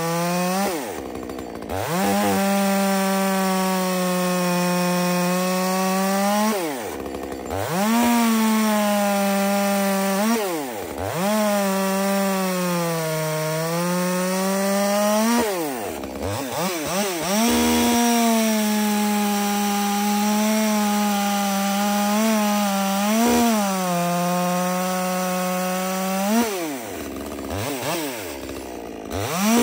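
Top-handle chainsaw cutting through a large log at full speed, its pitch sagging under load in the cut. The trigger is let off and squeezed again several times, so the saw's speed drops away and climbs back.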